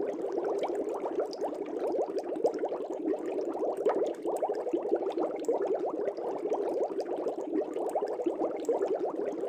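Air bubbles bubbling steadily in a fish tank: a dense, continuous patter of small bubbles at an even level.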